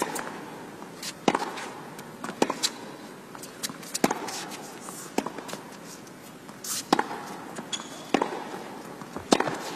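Tennis rally: rackets strike the ball back and forth, a sharp hit about every one to one and a half seconds, with quieter ball bounces and footfalls on the court between the hits.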